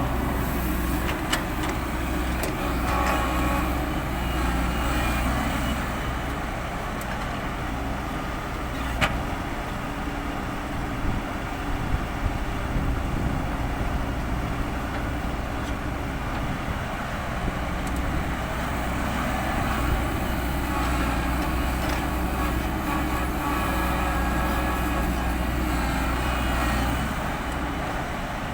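Heavy earthmoving machinery's diesel engine running steadily, its note strengthening and easing now and then, with a few sharp knocks or clanks, the clearest about nine seconds in.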